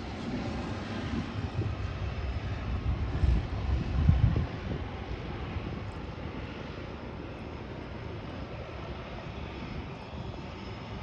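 Harbour Air de Havilland Otter floatplane's turbine engine and propeller running steadily as it settles onto the water just after touchdown. Briefly louder about three to four seconds in.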